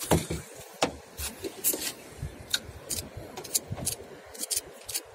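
Irregular knocks, clicks and rubbing as a caught grouper is lifted from the water into a small boat, over an uneven low rumble.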